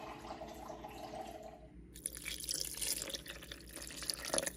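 Water running from a refrigerator door dispenser into a measuring cup, the pitch rising a little as the cup fills, stopping just under two seconds in. Then water poured from the cup into a blender jar already part full of liquid, a brighter splashing that lasts to the end.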